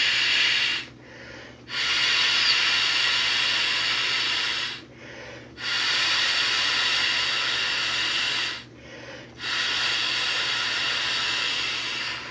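A person blowing by mouth into the valve of a Big Agnes inflatable mummy sleeping pad. Long blows of air of about three seconds each come with short pauses to take a breath between them.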